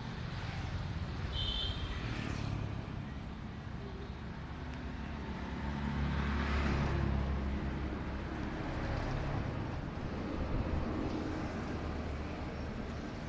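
Road traffic going by: a steady low rumble that swells as a vehicle passes about six seconds in, and again around ten seconds.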